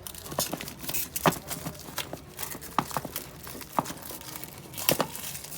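Irregular sharp clicks and taps with some crinkling, from a dashcam and its packaging being handled during unboxing.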